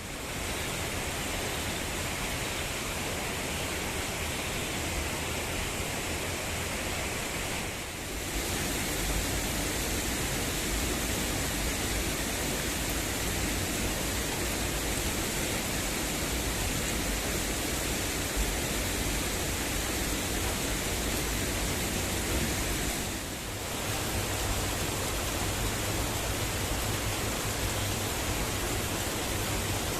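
Waterfall pouring, a steady full roar of falling water with no pauses in it. The roar dips for a moment about eight seconds in and again near twenty-three seconds, then carries on a little stronger in the low end.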